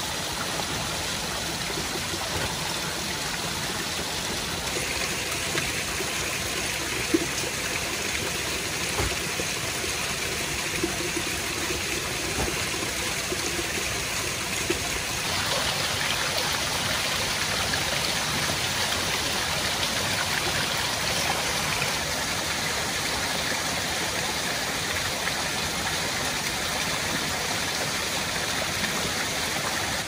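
Steady rushing of running water, the sound of a stream and waterfall. The hiss grows brighter about five seconds in and again about halfway through, with a couple of faint knocks in between.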